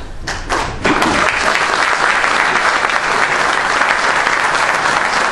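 Audience applauding: a few scattered claps that swell about a second in into steady, full applause.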